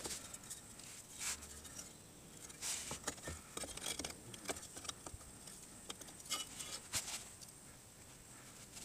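Faint, scattered small clicks and rustles of a gloved hand handling and positioning the metal clamp bracket around a car's fuel filter.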